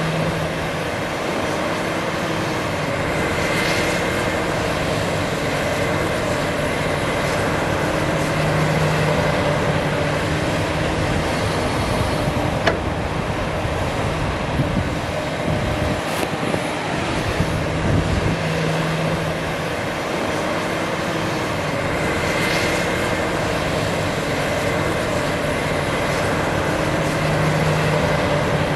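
Heavy diesel engines of a Komatsu PC360LC hydraulic excavator and a Volvo A25G articulated dump truck running steadily while the excavator digs and dumps sand into the truck. The excavator's engine note rises and falls every few seconds as it works through its dig-and-dump cycles, with two sharp knocks about halfway through.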